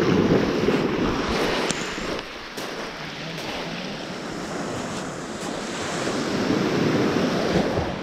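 Sea waves washing in, swelling near the start and again toward the end.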